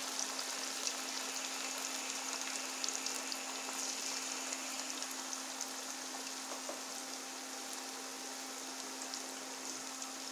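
Masala-coated chicken pieces deep-frying in hot oil in a metal kadai: a steady sizzle with many small pops and crackles. A faint steady hum runs underneath.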